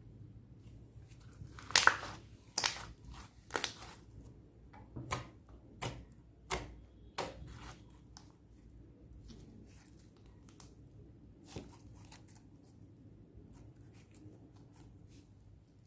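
Clear slime being worked by hand, giving a run of sharp wet crackling pops, about seven in the first half, the loudest near two seconds in, then fainter scattered clicks.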